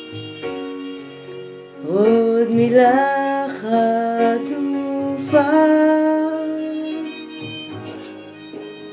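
A woman singing Hebrew lyrics over a slow instrumental backing track. About two seconds in she comes in louder with long held notes, sliding up into each one, then eases off near the end.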